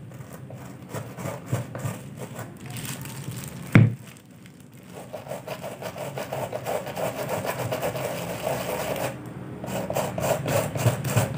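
Small stiff-bristled brush scrubbing a white leather Adidas sneaker coated with cream cleaner, in fast back-and-forth rasping strokes. There is one sharp knock about four seconds in, and a brief pause in the scrubbing near the end.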